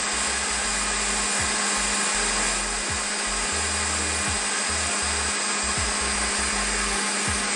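Electric countertop blender running steadily at one speed, mixing a thick mayonnaise-based Caesar dressing; the motor cuts off at the very end.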